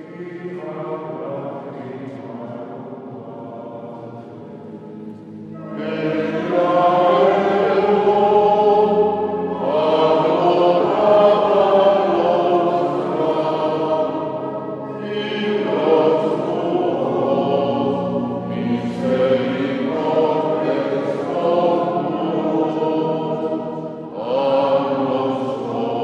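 Voices singing a church chant at mass: slow, sustained sung phrases with short breaks between them, soft at first and growing louder about six seconds in.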